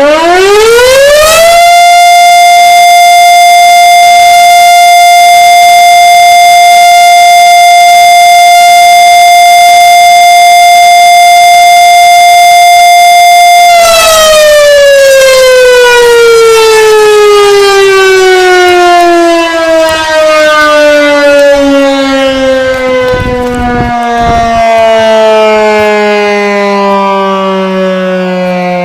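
1942 Federal Model 5A electric siren, with a 7.5 horsepower motor and an 18-inch rotor. It reaches full speed about a second in and holds one steady, loud wail for about twelve seconds. Then it is switched off and winds down, its pitch falling slowly.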